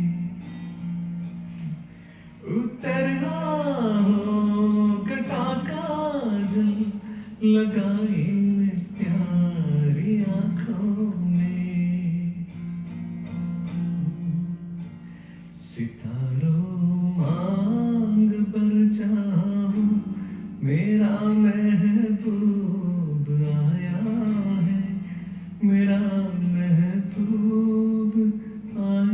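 A man singing a slow Hindi song over acoustic guitar accompaniment, with pauses between the sung phrases where the guitar carries on alone.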